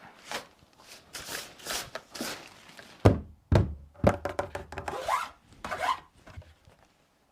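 Handling noises: scattered rubbing and scraping strokes with a few dull thumps, about three and four seconds in.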